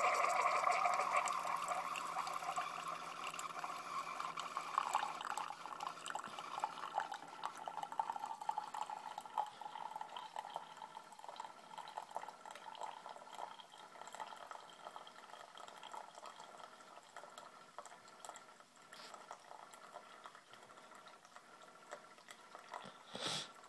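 Keurig coffee maker brewing, a thin stream of coffee pouring and trickling into a ceramic mug. It is strongest at the start and slowly tapers off as the stream thins. A brief noise comes near the end.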